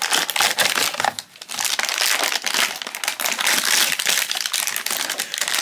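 Crinkling and rustling of packaging being opened: a small cardboard blind box pulled open, then a foil inner bag crinkled and worked open by hand. The crackling is dense and continuous, with a short lull about a second in.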